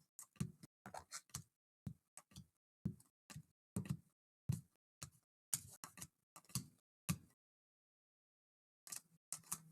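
Trading cards being handled between packs: a string of short, irregular taps and clicks, about two or three a second, as the cards are set down and shuffled on a table, with a brief pause near the end.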